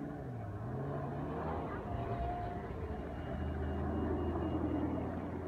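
Parade cars rolling slowly past close by on a wet road: a Ferrari F355's V8 at low revs, then a black Aston Martin convertible, with the engine note rising and falling and then holding steady as the second car passes, about three to five seconds in.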